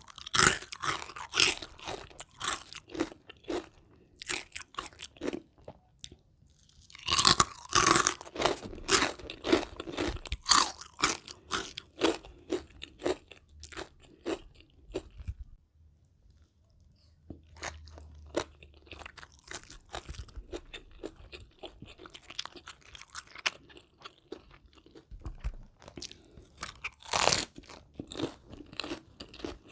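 Close-up eating sounds: bites into crunchy deep-fried battered chicken and chewing, crackling in irregular clusters. The crunching is loudest about a quarter of the way in and again near the end, with a brief lull just past the middle.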